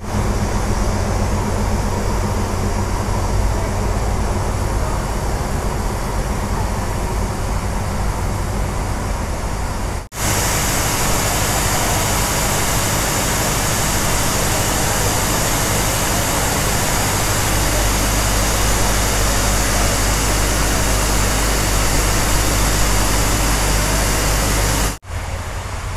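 Steam locomotive standing at the platform with steam hissing steadily and a low hum beneath. The sound breaks off briefly about ten seconds in and again near the end.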